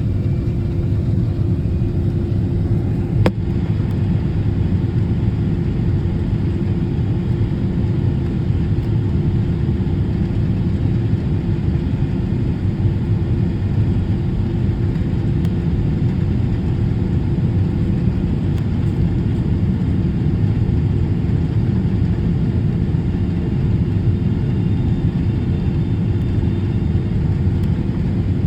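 Boeing 777 airliner's steady low rumble of engines and airflow, with a steady hum over it and a single sharp click about three seconds in.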